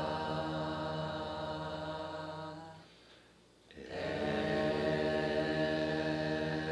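Soundtrack of a low chanted drone, held steady with many ringing overtones. It fades away between two and three seconds in, breaks off for under a second, then swells back in and holds.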